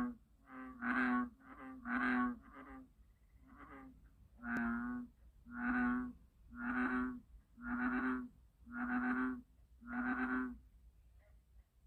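American bullfrog calling: a series of deep, steady croaks, about a dozen, each lasting about half a second. They come about twice a second at first, then slow to about one a second.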